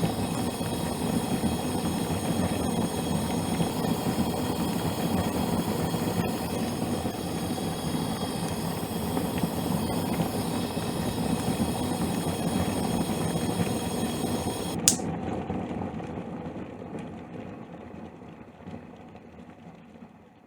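Water at a rolling boil in a pot on a gas stove burner, bubbling steadily over the hiss of the flame. About fifteen seconds in there is a sharp click and the flame's hiss stops at once: the burner is turned off, and the bubbling dies away over the last few seconds.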